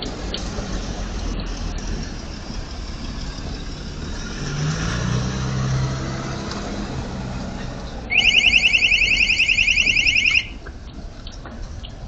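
Steady background rumble, then about eight seconds in an electronic alarm sounds a rapid, high-pitched warble for a little over two seconds and cuts off suddenly.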